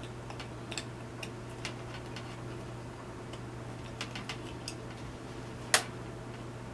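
Scattered small clicks and taps from handling a plastic AC charger head and its USB cord, with one sharper click a little before the end. A steady low hum runs underneath.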